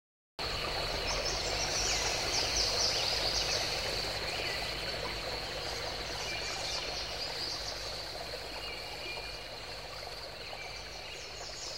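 Outdoor nature ambience: birds chirping over a steady high drone and a background hiss, starting after a moment's silence and slowly fading.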